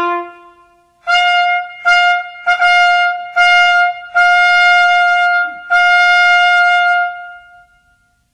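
Solo trumpet fanfare. A lower note dies away, then six notes sound on one high pitch, the last two held longer, before it fades out near the end.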